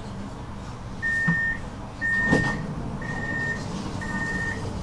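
Tram door warning beeper sounding four steady high beeps, about one a second, each about half a second long, over the tram's low rumble.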